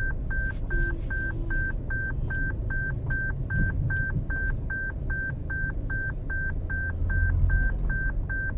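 A vehicle's electronic warning chime beeping steadily, about three beeps a second, over the low rumble of the car driving.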